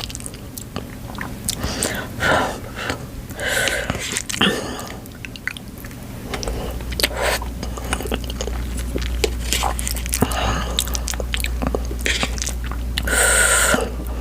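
Close-miked eating of spicy noodles and rice: chewing and biting with wet mouth clicks, and a few breathy intakes of air through the heat of the bites.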